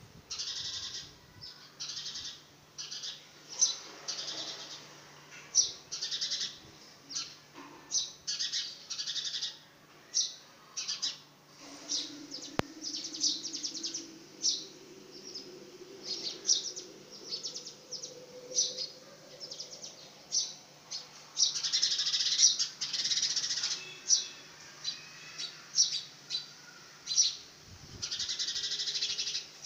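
House sparrow chirping: short, high calls repeated roughly once a second, with denser runs of rapid chirps about two-thirds of the way through and again near the end.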